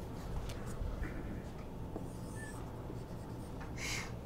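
Dry-erase marker drawing on a whiteboard: a few faint scratchy strokes as small circles are drawn, the loudest one near the end, over a low steady room hum.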